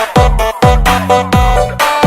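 Electronic dance music with a steady kick-drum beat, about two beats a second, under held synth tones.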